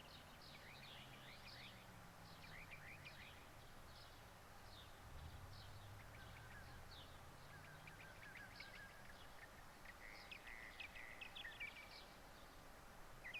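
Faint neighborhood ambience sound effect: many small birds chirping throughout over a low, distant rumble that swells briefly about five seconds in.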